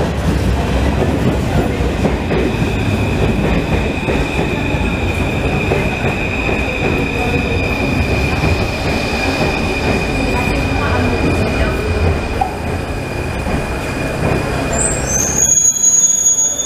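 Paris Métro train pulling into the station and slowing to a stop, rumbling on the rails with a steady high-pitched squeal through most of it. About a second before the end the rumble stops abruptly as the train halts, followed by a few short high-pitched hisses.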